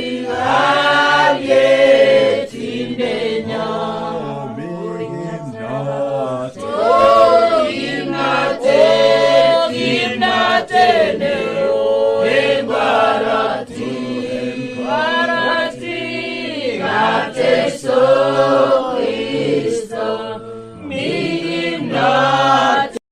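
A choir of voices singing together, with steady low notes held underneath.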